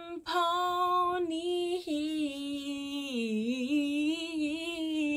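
A woman's voice sings one long held note that draws out the word 'ponies'. The note holds steady, sags lower about three seconds in, then comes back up and carries on.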